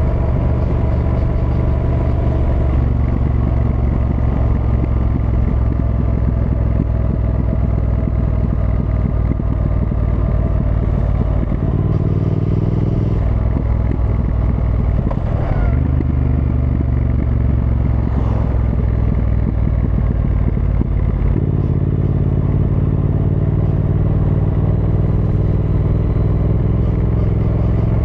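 Triumph Thruxton R's 1200 cc parallel-twin engine running on the move. Its note holds steady, then steps in pitch a few times around the middle and again about three quarters of the way through.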